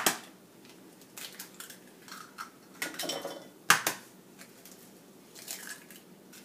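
Eggs being cracked open over a plastic mixing bowl: sharp taps of eggshell, the loudest right at the start and another about four seconds in, with light shell crackle and handling between.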